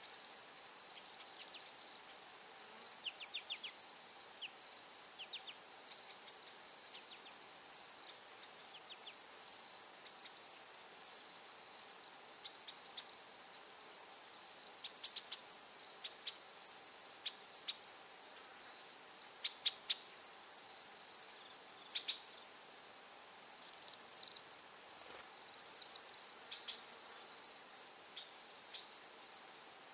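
Steady chorus of crickets trilling without a break in two high pitches, with short high chirps here and there.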